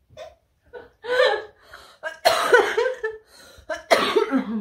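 A woman laughing in breathy fits, gasping for breath between them.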